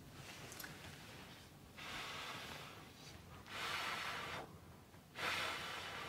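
Three soft breathy puffs, each under a second, from a person drinking from a bowl of something hot.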